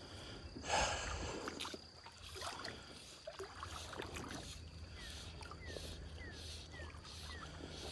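Creek water moving around a wading angler, with a brief rush of splashing about a second in. In the second half a run of five short, faint, falling squeaks comes about every half second.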